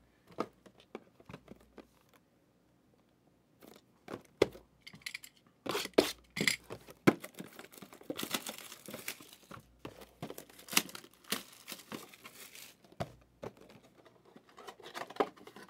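Sports card boxes being unpacked from a case: cardboard and plastic packaging tearing and crinkling, with scattered sharp knocks and a brief quiet stretch about two seconds in.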